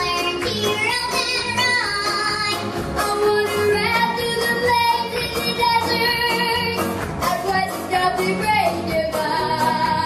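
A young girl singing ventriloquist-style through a hand puppet, backed by a live band, with long held notes.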